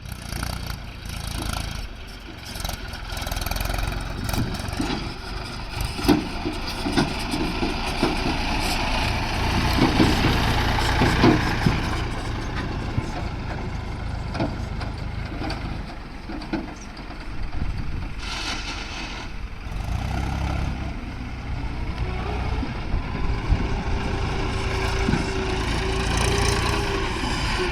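Diesel engines of a tracked excavator and a Mahindra 275 DI XP Plus tractor running steadily while mud is loaded, with scattered knocks between about six and twelve seconds in. A steady whine joins in over the last few seconds.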